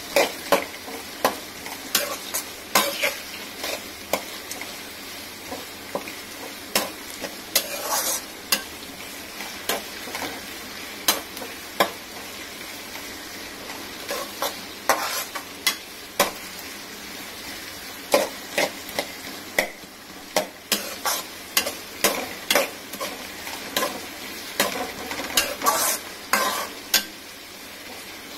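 Sliced onions sautéing in hot oil in a metal kadai, with a steady sizzle, while a metal spatula stirs them: sharp scrapes and taps of the spatula on the pan come irregularly, one to three a second, louder than the sizzle.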